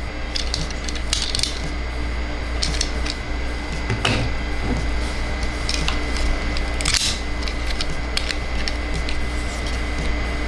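Small plastic toy parts clicking and rustling as a transforming toy is handled, a dozen or so scattered clicks, loudest about four and seven seconds in, over a steady low hum.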